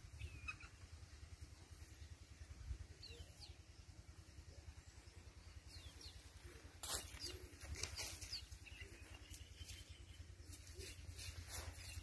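Faint outdoor farm ambience: a steady low rumble, a few faint bird chirps, and short crackling or rustling sounds about seven seconds in and again near the end.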